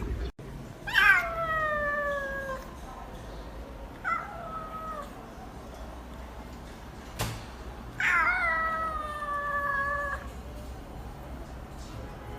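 A cat meowing three times: a long drawn-out meow about a second in, a shorter one, then another long meow near the end, each sliding slightly down in pitch. A single sharp click falls between the second and third meows.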